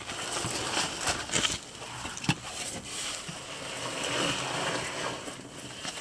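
Rustling and scraping of a caver crawling through a tight, muddy cave passage, body and gear rubbing on mud and rock, with a few sharp knocks.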